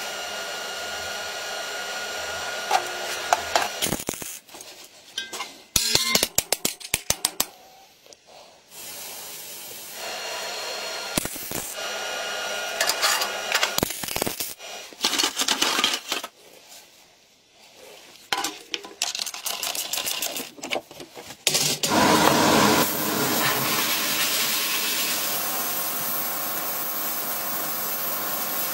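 Metalworking sounds in short cuts: an angle grinder running against the steel frame, and MIG welding sizzling, with runs of sharp clicks and brief pauses between them.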